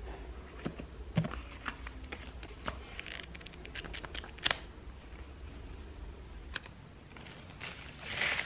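Hands handling shrink-wrapped paperback books: scattered light taps, clicks and crinkles of plastic wrap and paper, with a denser crinkling of plastic near the end.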